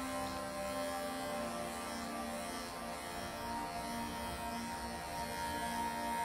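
Electric pet clippers running with a steady buzzing hum as they shave through the matted fur of a Persian cat. The tone shifts a couple of times, about a second in and again midway.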